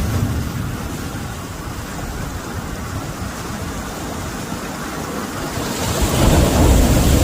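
Sea surf washing in, mixed with wind rumbling on the microphone; the rush eases off and then builds again about six seconds in.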